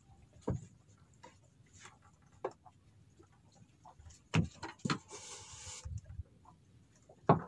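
Scattered knocks and clicks of fishing rods and reels being handled, with a brief hiss a little past halfway and a sharp knock near the end.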